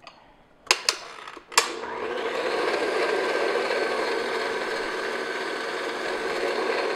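Stand mixer beating thick choux pastry paste: a few sharp clicks, then the motor starts about a second and a half in and runs steadily.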